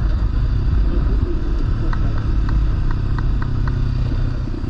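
Kawasaki Versys-X 300's parallel-twin engine running steadily while riding on a gravel road, with wind and tyre noise. About halfway through comes a quick string of about six light ticks.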